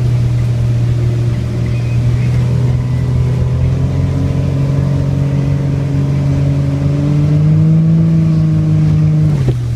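Motorboat engine running steadily underway. Its pitch creeps up a little about two-thirds of the way through, then drops quickly just before the end.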